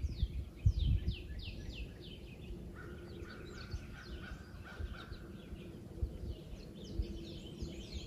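Songbirds singing in woodland: many quick, downward-sliding chirps. Wind buffets the microphone with low rumbles in the first second or so.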